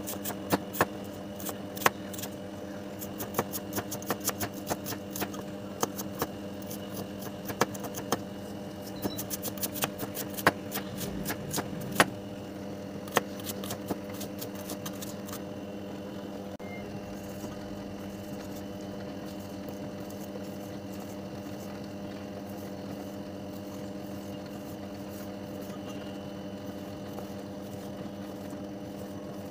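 Knife chopping onion on a plastic cutting board: quick runs of sharp taps through the first half, then only a few taps. A steady hum runs underneath.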